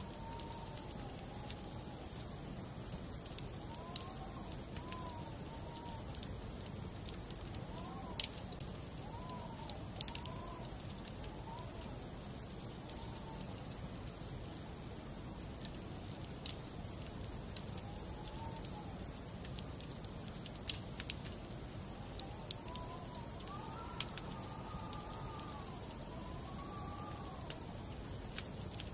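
Wood fire burning in a fireplace: irregular sharp crackles and pops over a steady low rumble. Now and then, for a few seconds at a time, come wavering whistling tones that rise and fall.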